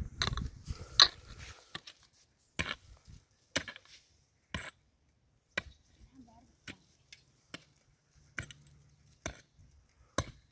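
Regular blows of a tool on wood, one sharp strike about every second, after a brief clatter of knocks at the start.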